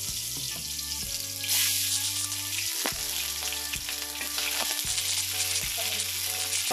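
Sliced onions sizzling in hot oil in a kadai, with a spatula stirring them and a few short knocks against the pan from about halfway on. The sizzle grows louder about one and a half seconds in.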